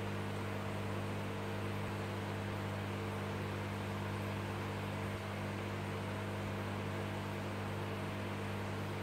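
Aquarium equipment running with a steady hum and an even hiss underneath.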